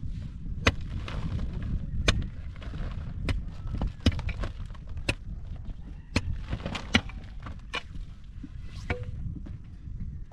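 A series of sharp knocks, about one every second and unevenly spaced, over a steady low rumble.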